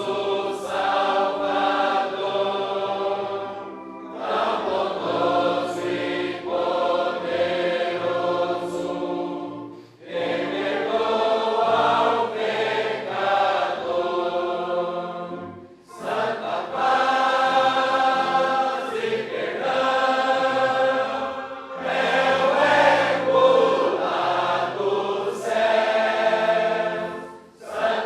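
A choir sings a Portuguese gospel hymn in sustained phrases of about six seconds each, with brief breaks for breath between them.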